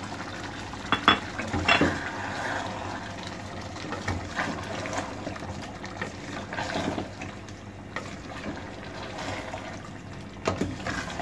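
Wooden spatula stirring potato chunks through wet minced-meat masala in an aluminium pot, with a few sharp knocks against the pot about a second in. Underneath is a steady wet hiss from the simmering pot.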